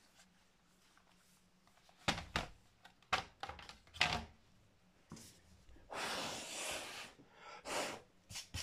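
Sharp clicks and knocks of a plastic laptop case and parts being handled during reassembly, four in the first half, then about a second of scraping rustle around six seconds in and a shorter one near the end.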